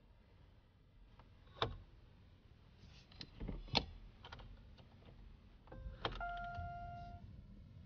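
Quiet car cabin with a few soft clicks and knocks, then an electronic dashboard chime about six seconds in: a short beep followed by a steady two-note tone held for about a second.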